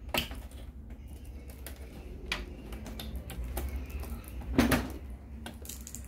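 Scattered light plastic clicks and knocks from unplugging the optical drive's connector and handling the all-in-one PC's plastic back cover, with one louder knock a little before the end.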